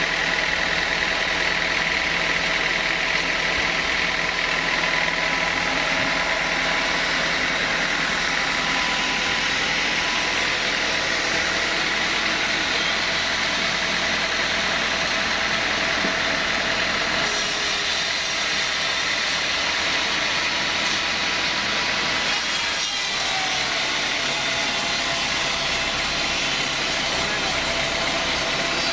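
Sawmill saw running steadily while cutting teak wood; about seventeen seconds in the sound turns brighter.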